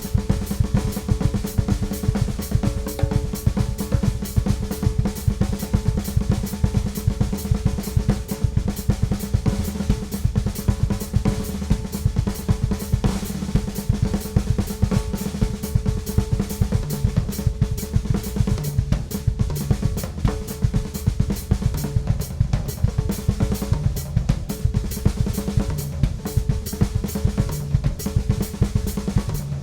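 Ludwig Classic Maple drum kit played continuously in a busy, dense pattern: snare, bass drum, hi-hat and cymbals, the toms and snare ringing under the strokes.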